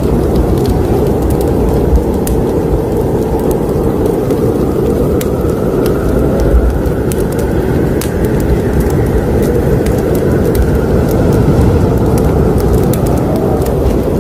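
Wood fire burning in a fireplace: a steady low rushing with scattered sharp crackles and pops at irregular moments.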